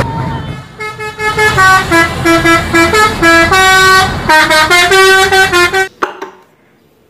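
Multi-tone musical bus horn of the Indonesian "telolet" kind, playing a quick tune of short notes that step up and down in pitch over engine noise. It cuts off suddenly about six seconds in.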